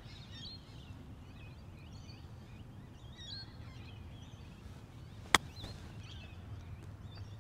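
A golf club strikes the ball once about five seconds in, a single sharp click on a short approach shot. Birds chirp now and then over a low steady rumble.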